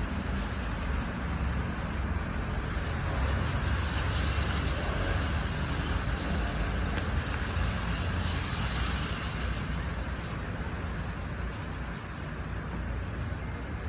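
Steady road traffic noise, even throughout, with no distinct events.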